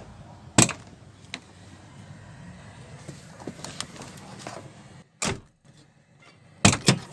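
A car door latch and its newly replaced handle being tried: a sharp click about half a second in, another around the middle, and two quick knocks near the end, with fainter clicks between.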